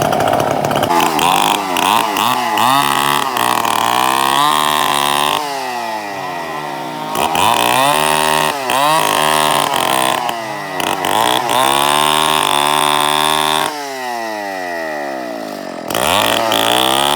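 Two-stroke chainsaw running hard, its engine pitch rising and falling again and again. Twice the revs drop away, about a third of the way in and again near the end, then pick back up.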